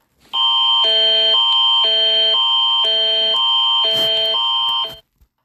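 Canada's Alert Ready emergency alert attention signal: a steady high tone over a chord that switches between a higher and a lower pair of tones every half second, lasting about four and a half seconds before cutting off abruptly. A brief click sounds about four seconds in.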